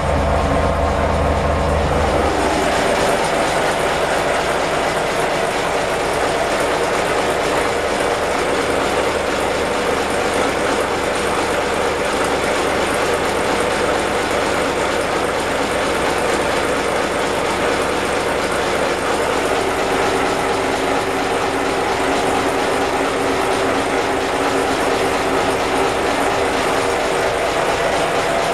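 Turbocharged Isuzu marine diesel engine running steadily at low revs. From about two seconds in it is heard up close in the open engine compartment, louder and noisier.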